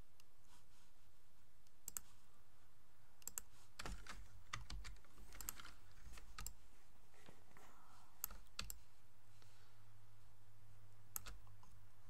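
Irregular, scattered clicks of a computer mouse and keyboard, about a dozen over the stretch, with a faint low hum behind them.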